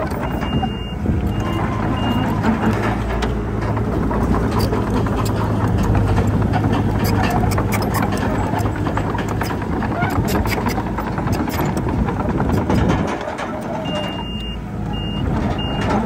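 Heavy diesel earthmoving machinery running steadily, with a backup alarm beeping a run of short beeps in the first two seconds and again near the end. The deep engine note drops away about 13 seconds in.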